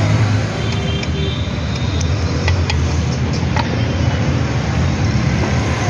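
Steady low rumble of a running motor vehicle, with several sharp light clicks in the first half.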